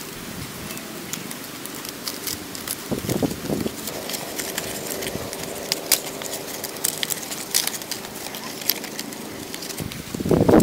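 Leaves rustling and crackling as they are handled and folded over thin sticks into thatch panels, with many small ticks and snaps. A louder, lower sound starts near the end.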